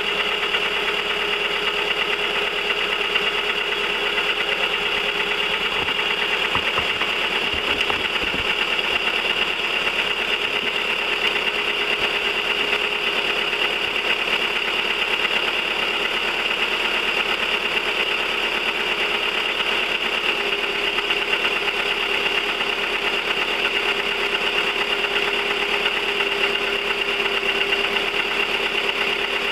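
1999 VW 1.4 16V four-cylinder petrol engine running steadily at idle with a rapid, even ticking. The owner suspects the oil pump or the cam rollers, and links the noise to the engine burning oil.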